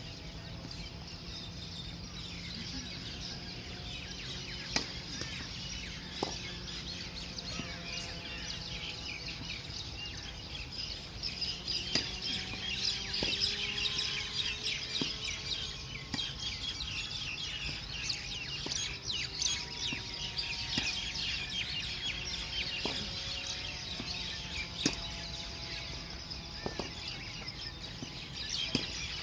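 Many birds chirping in a dense, continuous chatter. A tennis ball is struck by a racket every few seconds, each hit a sharp pop.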